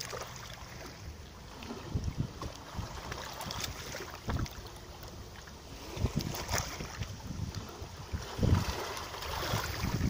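Small waves lapping and washing over a sandy, pebbly shoreline, with low wind rumbles on the microphone now and then.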